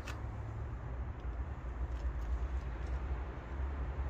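Wind buffeting the microphone, a steady uneven low rumble. There is a sharp click right at the start and a few faint ticks as the clutch cable is seated in the new lever.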